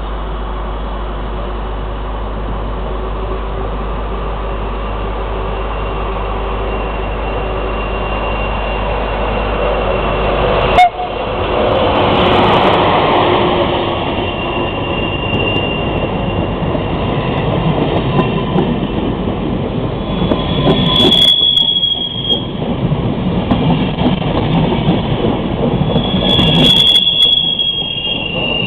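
Passenger train hauled by an electric locomotive rolling past: a steady hum at first, then, after a sudden sharp click about eleven seconds in, a louder rumble of wheels on rails that builds up. Two brief high squeals come near the end.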